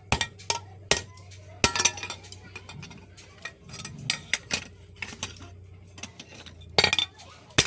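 Hammer striking a piece of sheet metal on an anvil: irregular sharp metallic clinks, about twenty, some in quick pairs.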